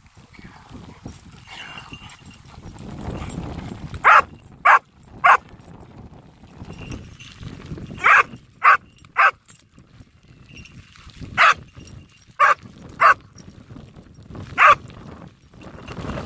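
Trainee search dog barking at a found casualty, the bark alert that marks the find: about ten sharp barks, mostly in quick runs of three.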